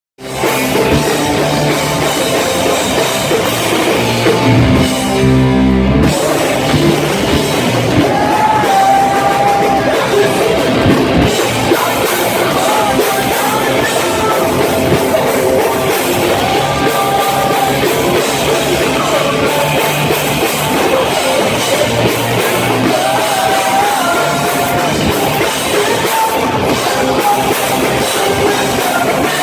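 Punk rock band playing live: loud distorted electric guitars and drum kit, with singing.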